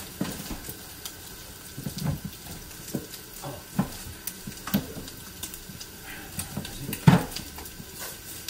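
Lemon-butter sauce bubbling in a skillet on a gas burner, with scattered knocks and clinks of kitchen utensils and dishes. The loudest knock comes a little after seven seconds in.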